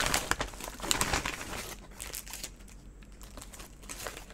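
A white packaging bag being rummaged through by hand, crinkling loudly for the first second or so, then softer rustling as an item is drawn out.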